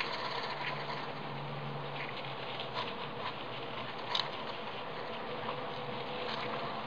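Syrian hamster scratching and digging in the granules of a plastic sand bath: scattered small scrapes and clicks, the sharpest about three and four seconds in, over a steady hiss.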